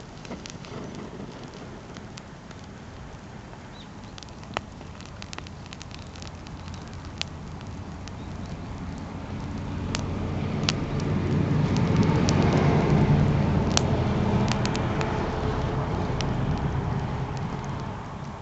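Wood campfire crackling, with scattered sharp pops. About halfway through, a low rumble swells up and fades away again over roughly ten seconds.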